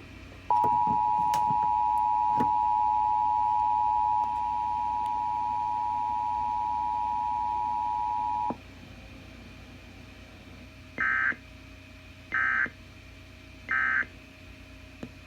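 Emergency Alert System weekly test tones: the two-tone attention signal, held steady for about eight seconds and then cut off, followed a few seconds later by three short bursts of data tone. The three bursts are the end-of-message code that closes the alert.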